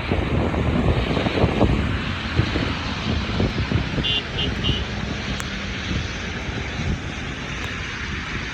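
Heavy rain in strong wind, the gusts buffeting the microphone with a low rumble over the steady hiss of the downpour.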